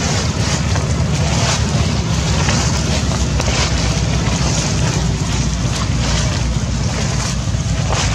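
Wind buffeting the camera microphone: a loud, steady rushing noise with a low rumble, swelling in surges about once a second.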